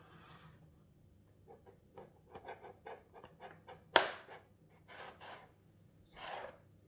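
A knife blade scraping and cutting the tape seal on a cardboard box: a run of short scratching strokes, then a sharp snap about four seconds in, the loudest sound. Two quick rasping swishes of blade or cardboard follow, then one more near the end.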